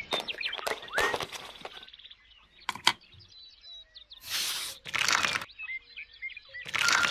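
Birds chirping in the background, broken by several short bursts of crunching, scraping noise and a sharp click.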